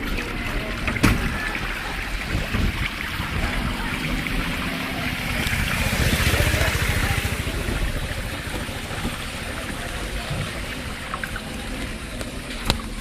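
Floodwater sloshing and trickling around a cycle rickshaw wading through it, swelling louder for a couple of seconds around the middle, with a couple of sharp knocks.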